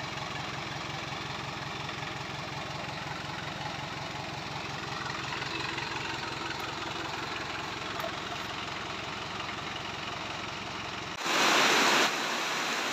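Engine of an old Daihatsu 4x4 idling with a steady, even throb. Near the end it cuts off abruptly into a sudden loud rush of noise about a second long, then a steady hiss.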